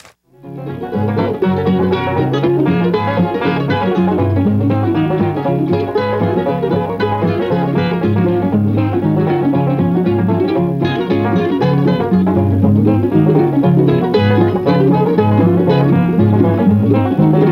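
Upbeat instrumental music in a bluegrass style, with plucked banjo and guitar, starting about half a second in after a brief near-silence.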